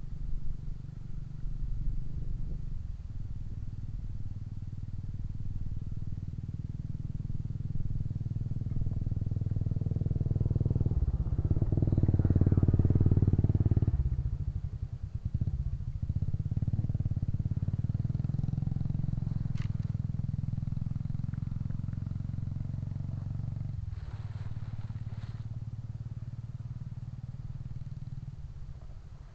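A small engine running steadily and growing louder to a peak about halfway through. It then drops off sharply and carries on more evenly, fading near the end.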